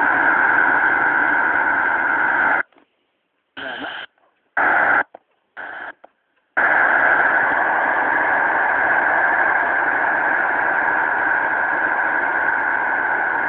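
Noise hissing steadily from a Magnum PLL-synthesized radio tuned to the shortwave band. About two and a half seconds in it cuts out, comes back in a few short bursts, and then returns steadily about four seconds later.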